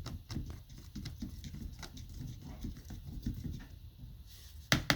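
Stir stick clicking and knocking irregularly against a bowl while fiberglass resin and hardener are mixed, with two sharper taps close together near the end.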